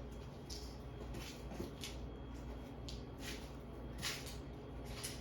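Harbor Breeze Builder's Best ceiling fan running on its high setting: a faint, steady low hum with a few soft, brief hissing sounds. A failing capacitor has it turning slower on high than on medium.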